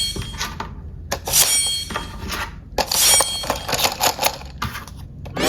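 Bright clinking, chiming sounds in repeated bursts, about every one and a half to two seconds.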